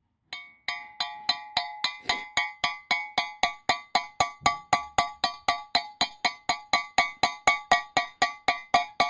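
A hammer tapping lightly and steadily on a steel socket, about four strikes a second, each strike ringing with a bright metallic tone. The socket is pressing a caliper slide-pin rubber boot's metal ring into the caliper bracket a little with each tap.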